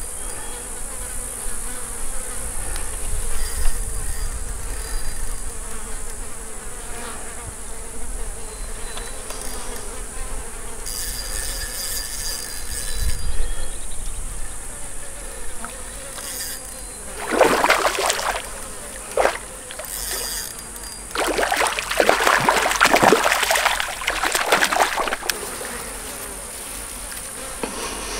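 Water splashing as a hooked brook trout thrashes at the surface near shore while it is reeled in. There is a short burst of splashing, then a longer one a few seconds later, over a steady high buzz of insects.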